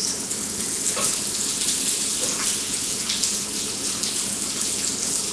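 Hot dogs sizzling as they fry in a pan: a steady crackling hiss with a few small pops.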